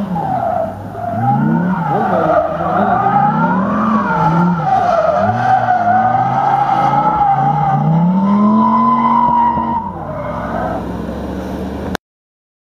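BMW E34's swapped-in Dodge Viper V10 revving up and down hard while the car drifts, its rear tyres squealing in a long wavering screech. The sound cuts off suddenly near the end.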